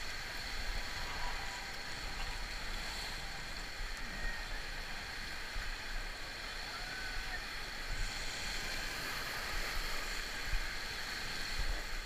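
Steady rush of whitewater rapids churning around an inflatable raft, with a low rumble underneath.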